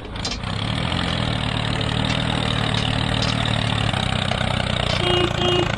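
Engine of a DIY mini tractor running steadily, with a low, even drone.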